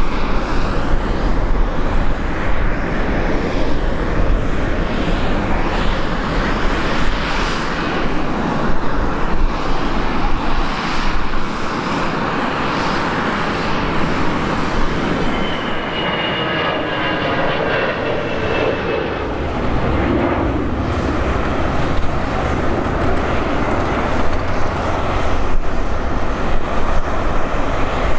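Airbus A319-112's two CFM56 jet engines at takeoff thrust, a steady loud rumble as the airliner rolls, lifts off and climbs away. A faint high whine comes through about midway.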